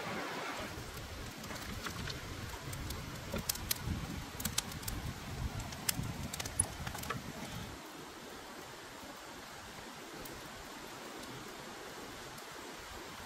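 Wood campfire of sticks burning, crackling and popping with sharp snaps over a low rumble of flames for most of the first eight seconds. After that only a soft, steady hiss of flowing stream water remains.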